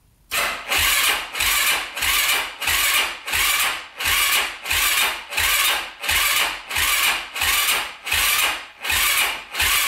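2005 Yamaha YFZ450's electric starter cranking its single-cylinder four-stroke engine without it firing. The cranking begins about a third of a second in as a rhythmic whirring that surges and drops about one and a half times a second. It is turning over too slowly to start.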